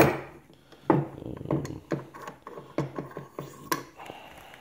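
Metal parts of an AK bolt carrier group clicking and knocking as they are handled and the bolt is worked out of the carrier over a wooden bench. A sharp click right at the start is the loudest, followed by about eight lighter irregular clicks.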